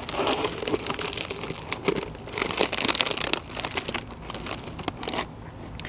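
Foil-lined chip bag crinkling as it is opened and a hand rummages inside for a chip, an irregular rustling crackle that eases off near the end.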